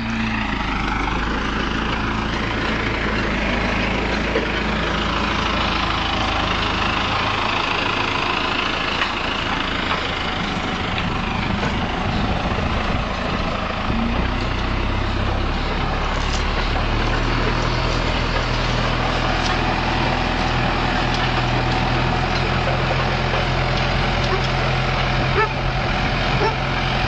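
Valtra farm tractor's diesel engine running steadily under load as it pulls a trailed cultivator through the soil. A broad rushing noise runs along with the engine, and the engine's pitch shifts a few times as it passes by.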